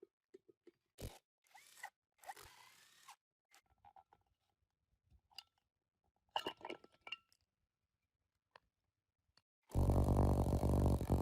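Scattered short scrapes and clicks, like parts and hand tools being handled on a bench, then a loud, steady buzz starting about ten seconds in and running for about a second and a half.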